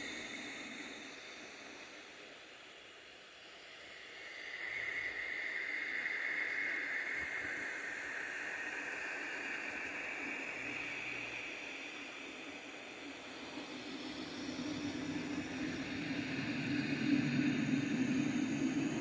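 Radio-like static hiss that shifts and wavers, swelling and fading in bands. It dips a few seconds in and grows louder near the end.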